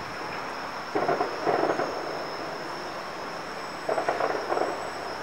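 Distant fireworks shells bursting, heard as two short clusters of bangs and crackle about three seconds apart, the first about a second in.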